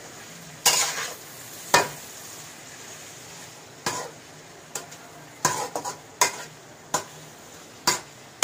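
Metal spatula stirring onions, tomatoes and herbs frying in oil in a metal kadai: a faint steady sizzle under sharp scrapes and knocks of the spatula against the pan every second or so.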